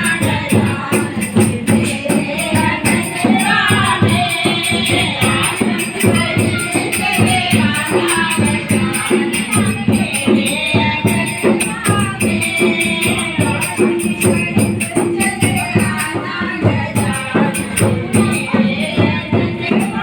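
Ganesh bhajan music: singing over a fast, steady beat of hand percussion with jingling, tambourine-like rattles.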